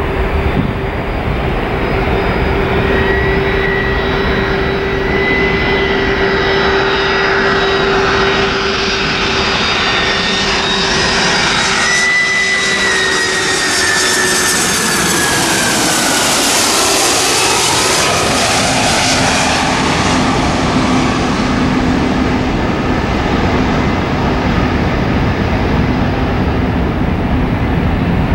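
Boeing 767-400ER's twin turbofan engines on landing approach. A steady whine with engine tones builds as the jet nears, and the pitch drops as it passes overhead about halfway through. A lower steady jet rumble follows as it descends toward the runway.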